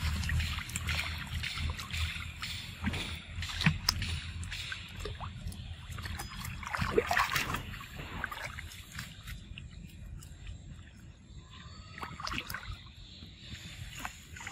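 Water splashing and sloshing as macaques swim and paddle in a pool, a run of small splashes with a louder burst of splashing about seven seconds in.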